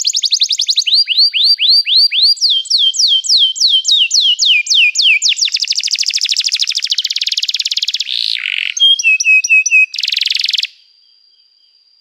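Domestic canary singing: rolls of quick repeated whistled notes that each sweep downward, changing to a very fast trill about five seconds in, then harsher buzzy phrases. The song stops abruptly near the end, leaving only a faint steady high whistle.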